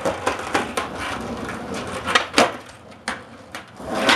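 Skateboard wheels rolling on concrete, broken by a series of sharp clacks from the board's tail popping and the deck and wheels slapping down during flat-ground flip tricks. The loudest cracks come about two and a half seconds in and again right at the end.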